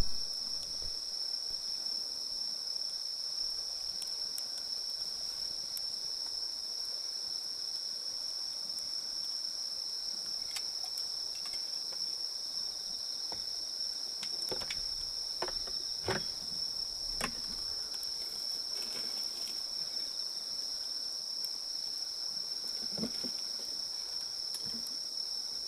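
Crickets trilling steadily in a high, unbroken chorus, with scattered snaps from a wood campfire crackling, mostly in a cluster a little past the middle and a few more near the end.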